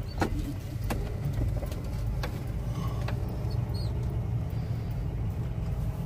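Steady low rumble of a vehicle's engine and road noise heard inside the cab as it moves slowly, with a few faint clicks about a quarter second, one second and two seconds in.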